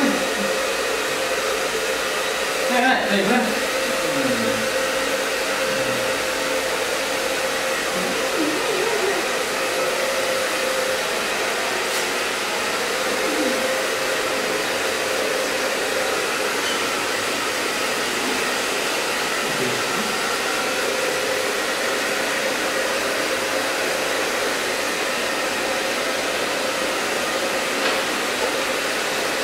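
Handheld electric hair dryer blowing steadily, a rush of air with a steady hum underneath, with a few brief sliding sounds over it about three seconds in.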